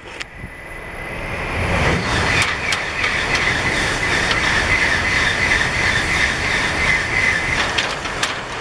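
Shinkansen bullet train passing at high speed close by: a rushing roar that builds over the first two seconds and then holds steady, with a high hiss and a few sharp clicks.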